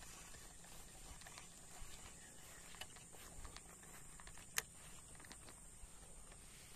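Faint outdoor ambience: a steady high-pitched insect drone, with scattered small clicks and one sharper click about four and a half seconds in.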